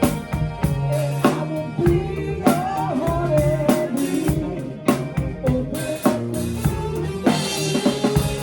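Music with a full drum kit playing a steady beat, bass drum and snare hits about every half second, over held bass and melody notes.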